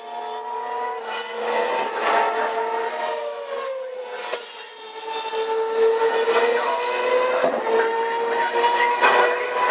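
Formula One cars' 2.4-litre V8 engines running at high revs past the corner, a high engine note whose pitch glides down about four seconds in as a car goes by, then another engine note building louder toward the end.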